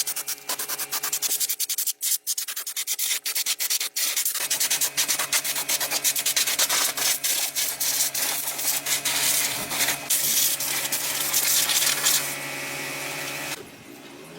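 Sanding on car bodywork: rapid, even rubbing strokes, with a steady low hum underneath from about four seconds in. Near the end the strokes give way to a steadier hiss, then it drops quieter.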